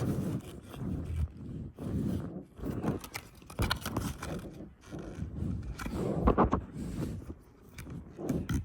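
Toy packaging being handled: irregular scraping and rubbing with a few sharper clicks.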